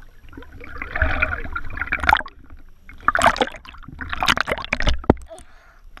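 Pool water splashing and gurgling around a camera held at the water surface, in several rushes about a second long with quieter moments between.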